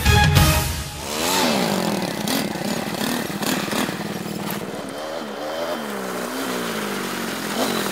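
ATV engines running, revving up and down as the quad bikes move slowly over dirt. The end of a short music sting comes first and cuts out about a second in.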